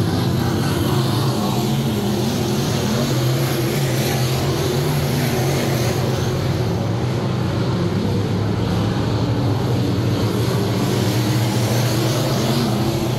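A field of dirt-track sport modified race cars with V8 engines running at speed around the oval. It is a continuous engine drone whose pitch wavers up and down as the cars accelerate down the straights and lift through the turns.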